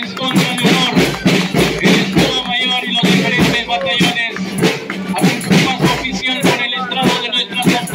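Marching band playing a march: brass over a steady beat of drums and cymbals.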